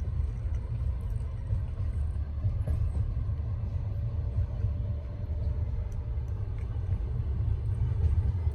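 Steady low rumble of a moving Russian Railways passenger train heard from inside a compartment, with a few faint clicks.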